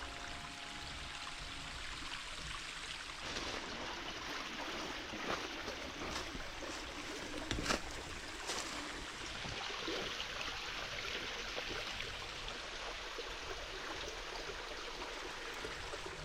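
Flowing water running steadily, with a few faint splashes and clicks in the middle.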